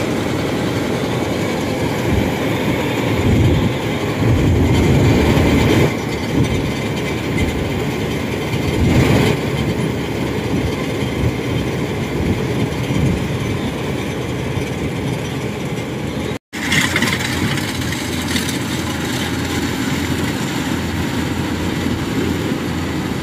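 Rice combine harvester running under load, its engine and crawler tracks making a steady clattering noise as it cuts flattened, waterlogged rice, with a tracked grain trailer running alongside. The noise breaks off for an instant about two-thirds of the way through, then carries on.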